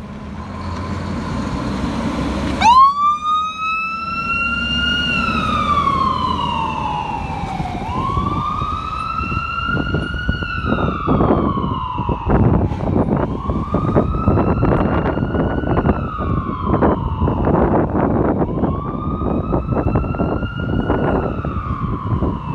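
Fire engine's engine running, then about two and a half seconds in its siren switches on with a sharp rise. It settles into a slow wail, rising and falling about every five seconds, as the engine responds to an emergency call. Irregular bursts of noise sound under the siren in the second half.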